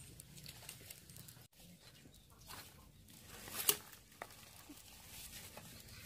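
Faint small knocks and rustles of a dark cooking pot being handled in a woven basket, the loudest a short scrape and knock about three and a half seconds in.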